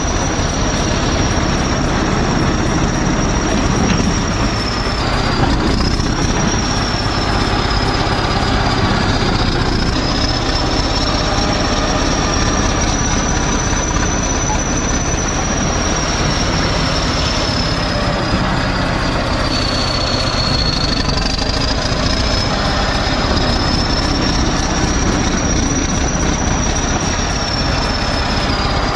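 Heavy machine's engine running steadily, with a thin high whine that drifts slowly up and down in pitch.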